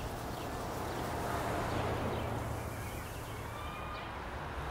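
Outdoor ambience: a steady low hum with a few faint bird chirps about three seconds in.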